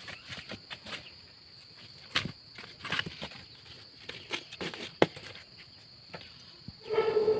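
Wood fire in a clay stove crackling and popping with scattered sharp clicks. About a second before the end, a short pitched tone rings out for roughly a second, louder than the crackle.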